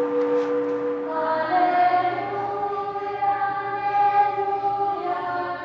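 Church choir chanting in slow, sustained notes, in the manner of Orthodox liturgical chant. A steady held tone sounds for about the first second, then the voices come in, holding each note and moving slowly from pitch to pitch.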